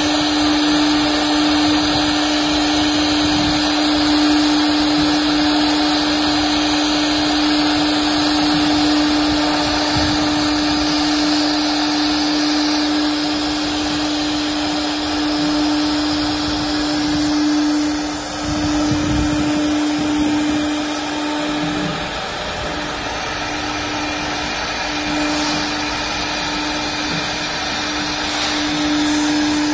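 The 4.5 kW air-cooled spindle of a 1325 CNC wood router runs with a steady high hum while its bit cuts into a wood board sheet, over a dense cutting hiss. The hum wavers and breaks briefly about 18 and 22 seconds in.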